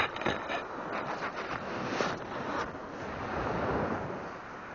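Surf washing on the shore, with wind on the microphone; the surf swells up about three seconds in and then eases.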